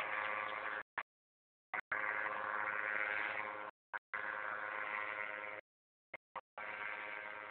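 Tandem paramotor's engine heard as a steady buzzing drone at constant pitch, mixed with a rushing noise. It cuts to dead silence several times, for up to a second at a time, as the recording drops out.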